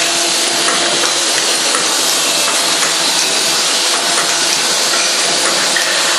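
Automatic cap assembly machine running, a loud steady hiss with a faint hum underneath.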